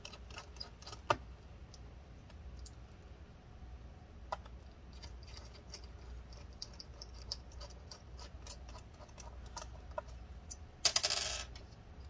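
Small screwdriver driving tiny screws back into a laptop's bottom cover: scattered light clicks and ticks of the driver and screws, with a sharper click about a second in. A short metallic rattle near the end is the loudest sound.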